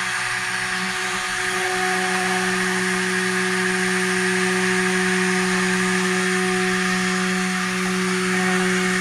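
Electric stick blender running steadily with a constant motor hum, submerged in a bucket of soap batter as it mixes lye water into the oils.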